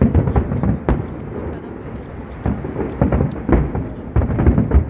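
Aerial firework shells bursting in quick succession over water: a dense string of deep booms that rumble like thunder, loudest near the end.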